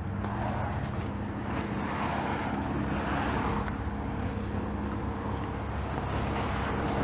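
Road traffic: cars passing one after another, their tyre noise swelling and fading several times over a steady low engine hum.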